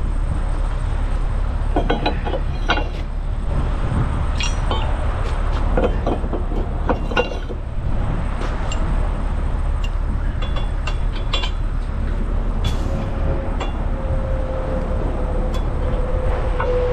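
Steel tow-truck wheel-lift parts clinking and knocking as pins and lift cups are handled and swapped, over a steady low engine rumble. A steady whine joins in over the last few seconds.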